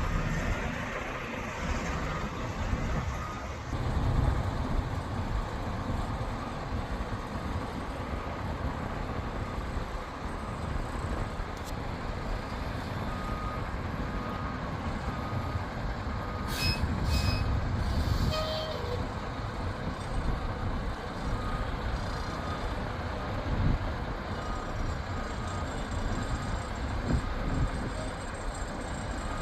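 Heavy diesel engine of a large mobile crane running with a steady low rumble, its back-up alarm beeping at a steady pace for several seconds midway.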